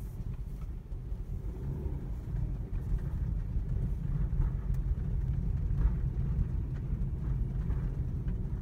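Steady low rumble of road and engine noise inside the cabin of a moving Subaru car.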